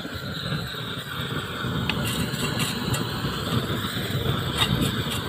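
Propane roofing torch burning with a steady roar while heating a trowel over a bitumen membrane seam, with wind on the microphone. A few light clicks of the trowel against the membrane, about two seconds in and again near the end.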